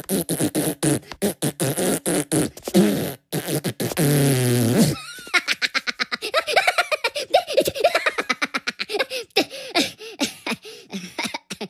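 Animated Minion characters laughing hysterically in high, squeaky cartoon voices, in rapid choppy bursts. About four seconds in comes one long, low buzzy blurt.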